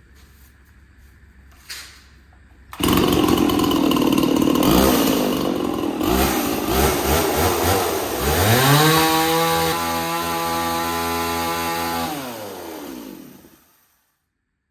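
Stihl 024 Wood Boss two-stroke chainsaw, fresh from a piston and cylinder replacement, starts running loudly about three seconds in. It is revved up hard, held at high revs for a few seconds, then winds down and stops near the end. The saw is being run to check that the chain oiler feeds bar oil.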